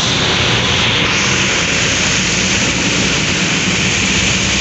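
Rain and traffic on a wet road: a steady hiss of rain and tyre spray over the low rumble of passing vehicles' engines.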